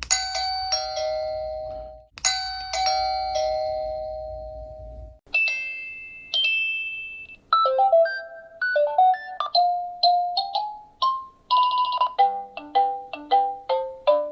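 A run of Wyze video doorbell chime tones, one after another: a ding-dong, a higher tone dropping to a lower one, rings out twice, each time for a couple of seconds. Then comes a different, higher two-note chime, then short melodic jingles of quick notes, ending in a fast repeating tune.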